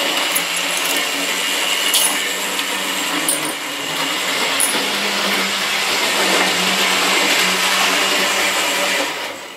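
00 gauge model locomotive running on the layout: a steady electric motor whirr with wheels rattling over the track and a few small clicks. It cuts off suddenly just before the end.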